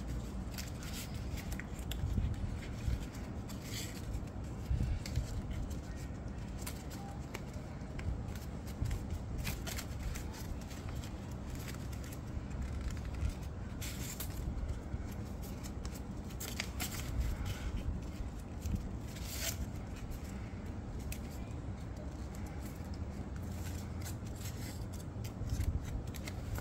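A sheet of paper being folded, creased and tucked by hand: irregular crinkles and rustles, with a steady low background rumble.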